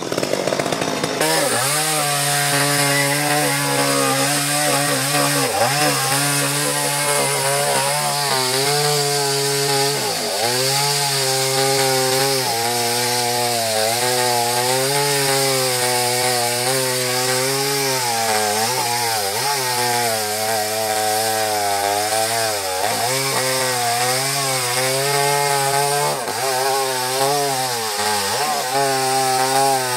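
Two-stroke chainsaw running at high speed, cutting into a coconut palm trunk. Its engine pitch sags under the load every few seconds and then climbs back.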